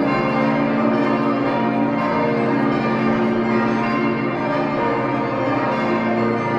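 The twenty bells of the Stiftskirche in Herrenberg ringing together in full peal: a continuous, dense mix of many overlapping bell strikes and tones.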